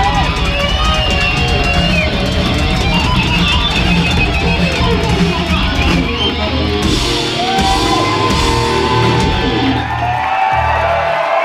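Hard rock band playing live: distorted electric guitar with bending lead lines over heavy drums and bass. The drums and bass stop about a second before the end.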